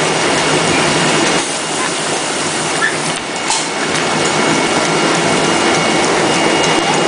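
Facial tissue production machinery running: a loud, steady mechanical clatter with a faint high whine through it.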